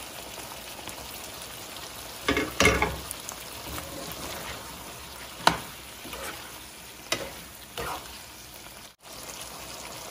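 Chicken and Thai eggplant sizzling in red curry sauce in a stainless-steel frying pan, stirred with a metal spoon. There is a clatter about two and a half seconds in, and the spoon clinks against the pan a few times.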